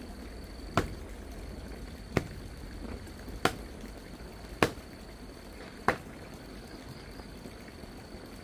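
Chopping: five sharp strikes at an even pace, about one every second and a quarter, stopping about six seconds in.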